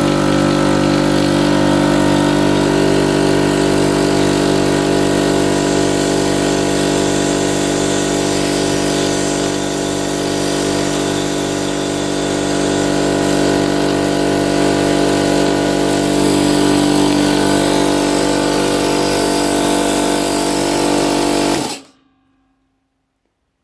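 A 50-litre air compressor's electric motor and pump running steadily and loudly with a fast, even pulse, on its first test after the pump manifold was rebuilt. It cuts off abruptly near the end.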